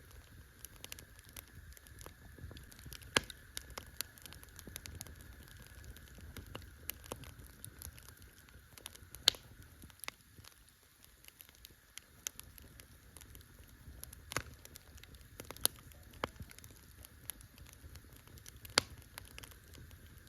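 Wood campfire crackling with a steady patter of small snaps and several louder pops scattered through, over a low rumble of the burning fire and a faint steady high hum.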